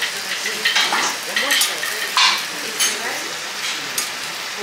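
Food sizzling on a teppanyaki steel griddle, with short metal scrapes and clinks of spatulas against the hot plate several times.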